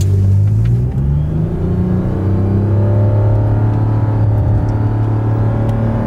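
Lexus RX450h hybrid SUV accelerating hard from a standstill under full throttle, heard from inside the cabin: its 3.5-litre V6 runs at high revs over a steady low hum, its pitch stepping about a second in and then climbing slowly with speed, with a faint high whine rising above it.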